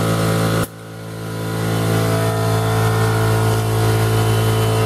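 Small electric air compressor running steadily with a constant motor-and-pump hum, with a brief drop in level about half a second in.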